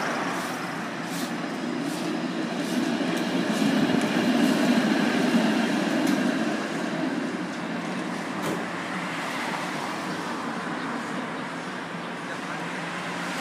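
City street traffic with a Bombardier Flexity Outlook low-floor streetcar passing on its rails; the noise swells about four seconds in and then eases off.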